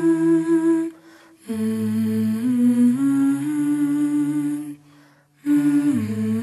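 Background music: a slow melody hummed in long held notes that step up and down, breaking off briefly twice.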